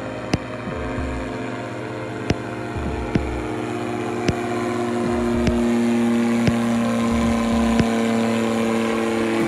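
Powered parachute's engine and propeller droning in flight, growing louder about halfway through as the craft passes low overhead. A few sharp ticks are heard along the way.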